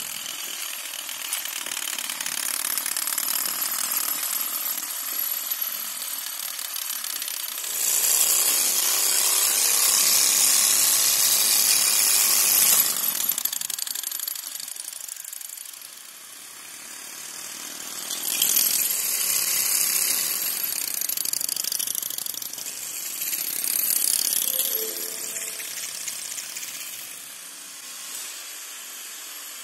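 Small model Stirling engine car running, its flywheel and crank mechanism rattling rapidly as the car rolls on a concrete floor. The rattle swells loud for several seconds in the first half and twice more later, as the car comes close, and is quieter near the end.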